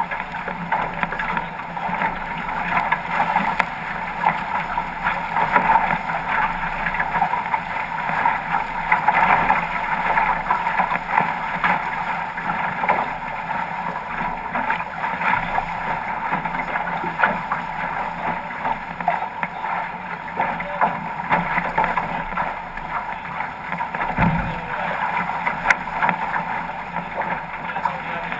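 Water rushing and splashing along the hull of a 505 two-person racing dinghy under sail, with wind buffeting the microphone. A single low thump late on.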